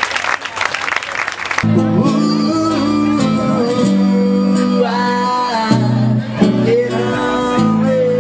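A crowd applauding, cut off abruptly about a second and a half in by a song: a voice singing a melody over guitar.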